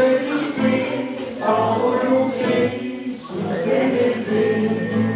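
A group of voices singing a French chanson together, led by a man on acoustic guitar.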